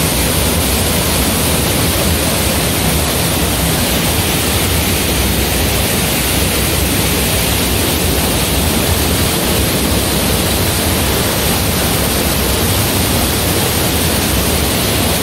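Waterfall pouring into a rock-walled plunge pool: a steady rush of falling water that cuts off suddenly near the end.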